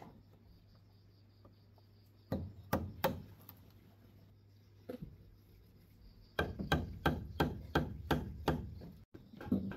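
A short hand blade chopping and notching a green bamboo pole: a few separate sharp knocks, then a quick run of knocks at about three a second in the second half.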